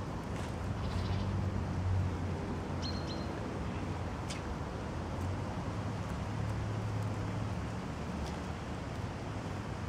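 Outdoor ambience: a steady low rumble of distant traffic, with a few short high bird chirps.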